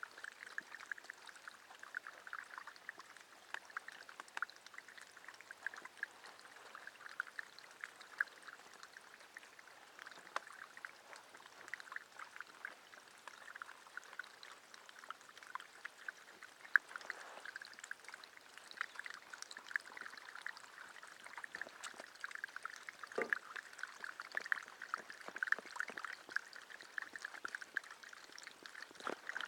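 Water pouring and bubbling steadily from a jetting pipe being worked into a sandy lake bottom, a busy crackle of splashes and bubbles, with one sharp click past the middle.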